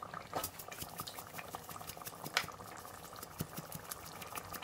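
Thick green pepper sauce (ayamase) made with vegetable oil simmering in a pot, its bubbles popping in quick, irregular clicks, with one sharper pop about two and a half seconds in.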